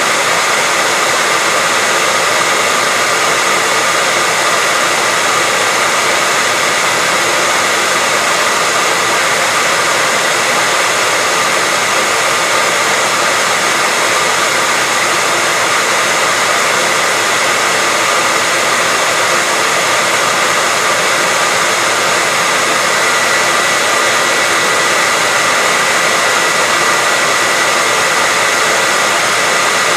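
Hair dryer running continuously, a steady loud rushing of air with a faint high whine from its fan motor.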